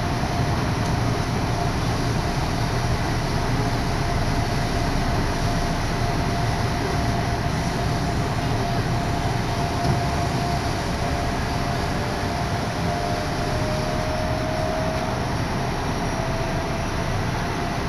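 Odakyu Odawara Line commuter train running at speed, heard from inside the carriage: a steady rolling rumble with a thin steady whine over it.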